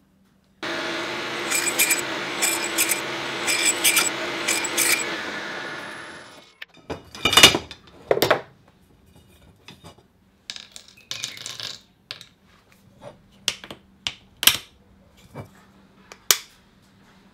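A workshop machine runs for about six seconds with metallic clicking over it, then winds down. Two sharp metal knocks follow, then lighter, scattered taps and clinks of small aluminium parts being handled and fitted at a bench.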